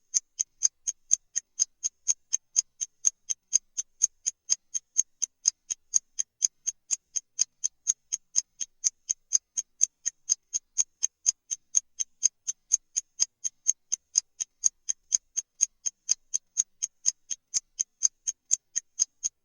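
Clock-tick sound effect of a countdown timer: sharp, high-pitched ticks, evenly spaced at a little under three a second, with no change in pace.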